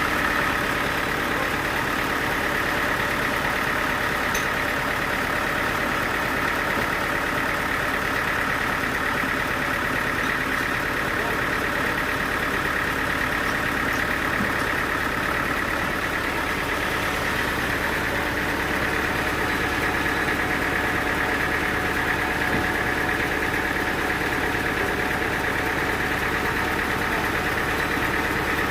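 Sawmill machinery running steadily: an engine hum with a high, steady whine over it and no change in load.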